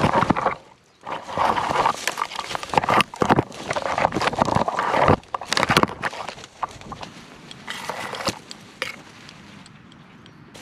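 Dry brush and twigs crackling and rustling against a body-worn camera as an animal pushes through tangled undergrowth, with quick footsteps. It is loud and busy for about five seconds, with a short break about a second in, then drops to quieter scattered snaps.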